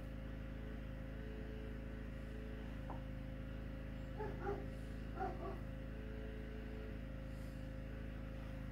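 Steady low hum with a thin steady tone through it. A few faint, short whining calls from an animal come in two small clusters, about four and five seconds in.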